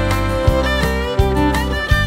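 Background music: a fiddle melody over a steady bass with a regular beat, about one and a half beats a second.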